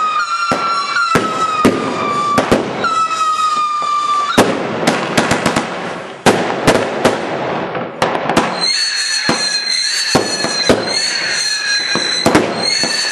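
Fireworks going off in a rapid string of sharp bangs and cracks. A whistling firework keeps up a steady, slightly falling whistle through the first four seconds, and a higher-pitched whistle starts about nine seconds in and runs on under the bangs.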